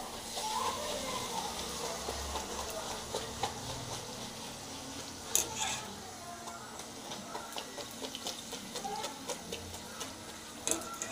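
Hot oil sizzling steadily in a kadai as a puri deep-fries, with a couple of sharp clicks about five seconds apart.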